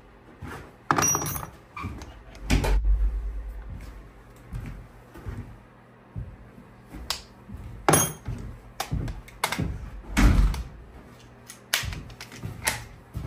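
Irregular clicks, knocks and thunks of a wood router and its rabbeting bit being handled and set up, about ten in all, with heavier thuds about two and a half seconds in and about ten seconds in. The router motor is not running.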